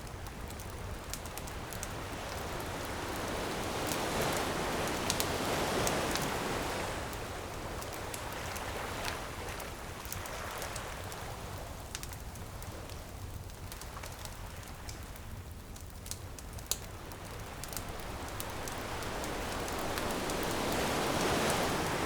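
Ocean waves washing onto a beach, swelling up twice, with a crackling bonfire snapping and popping throughout.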